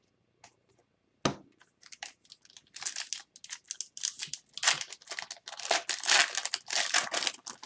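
Foil wrapper of an Upper Deck hockey card pack being torn open and crinkled. There is a sharp snap about a second in, then a few seconds of dense, irregular crackling.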